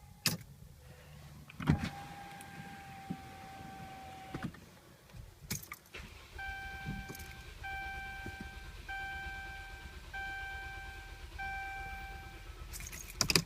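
Ignition clicks and a 2011 Dodge Durango's dashboard chimes during a start attempt: one long chime tone, then five evenly spaced beeps, with a rattle of keys near the end. The engine does not start, a fault the owner puts down to the Durango's TIPM (power distribution module).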